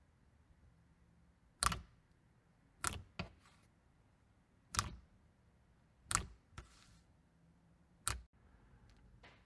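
Slime being pressed and squeezed, letting out five sharp pops spaced a second or two apart, two of them followed quickly by a smaller pop.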